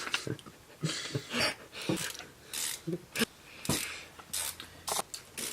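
Irregular clicks, clinks and light knocks of hand tools and small metal parts being handled.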